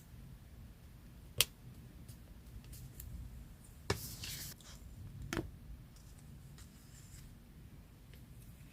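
Paper-craft handling at a desk: three sharp clicks or taps spaced a second or two apart, the middle one followed by a brief rustle of paper.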